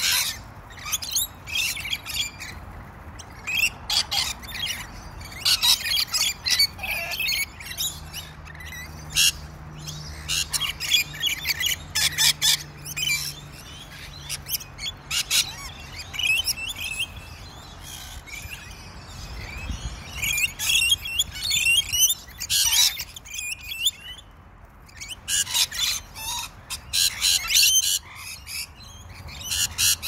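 A flock of rainbow lorikeets screeching and chattering in short, shrill bursts as they feed, the calls coming in busy clusters with a couple of brief lulls.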